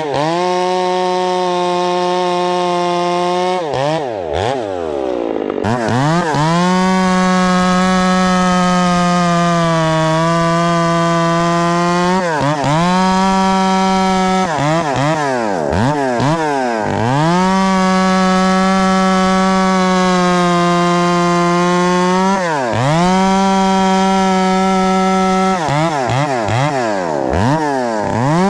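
Husqvarna 372XPW two-stroke chainsaw with a 28-inch bar and square-ground hand-filed chain, running at high revs while cutting balsam fir. The revs drop sharply and climb back up several times.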